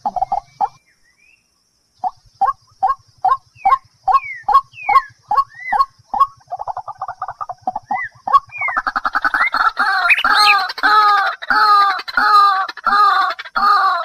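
A game bird calling: after a second of silence, a series of short pitched notes about two to three a second, some sliding upward, then from about nine seconds a faster, denser run of longer calls.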